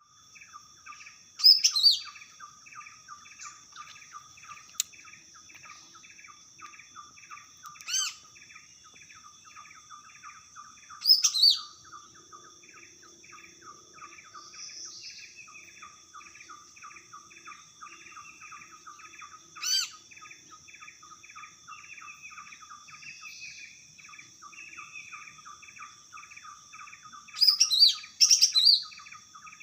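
Green leafbird (cucak ijo) calling: five loud, sharp, sweeping bursts of song come at irregular intervals, the last one doubled. Beneath them runs a steady fast chatter of chirps, about three a second, and a constant thin, high, insect-like drone.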